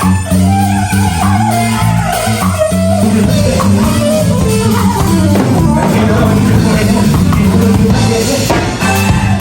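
A band playing rock music: guitar with a melodic line over a steady bass line and drums.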